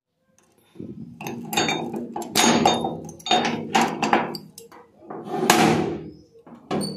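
Padlock being unlocked with a key and pulled off a steel door, the lock, its shackle and the keys clanking and rattling against the metal in a string of sharp knocks. About five seconds in, a longer scraping sound as the metal door is pulled open.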